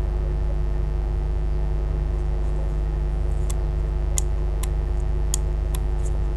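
Steady electrical mains hum, with about six light clicks in the second half from the wires being handled and joined.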